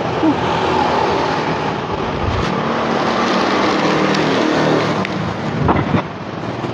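A motor vehicle engine running close by, a steady low drone over street noise, with a few short knocks near the end.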